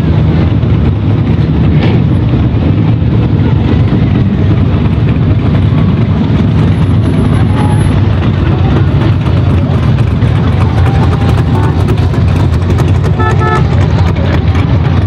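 Engines of classic cars and hot rods running at low speed as they roll past one after another, a loud steady low rumble. A short car horn toots near the end.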